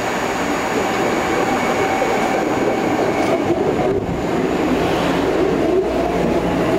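SEPTA Market-Frankford Line Adtranz M4 subway train pulling into an underground station and running close past, its wheels rumbling on the rails as it comes in to stop. The sound grows a little louder as the cars draw alongside, and a low hum sets in near the end.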